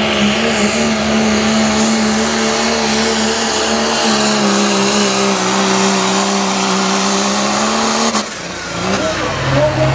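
2002 Dodge Ram's Cummins turbo-diesel inline-six running flat out under full load while pulling a weight-transfer sled, its pitch sagging slightly as the sled bears down. About eight seconds in the engine note drops away sharply as the pull ends.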